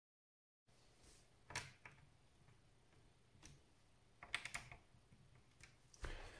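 Faint, scattered clicks and taps of small parts being handled while a laptop is reassembled, with a few light knocks in quick succession about two thirds of the way in.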